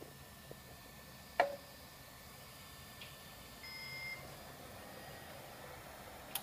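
Sharp plastic clicks from handling an open laser printer, the loudest about a second and a half in, and a brief, faint beep about four seconds in.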